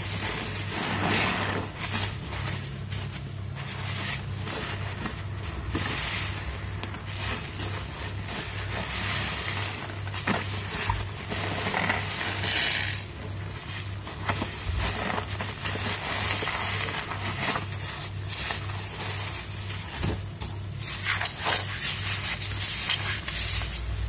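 Soap-soaked mattress-foam sponges squeezed by rubber-gloved hands in a sink full of thick suds: repeated wet squelching and crackling of foam, over a steady low hum.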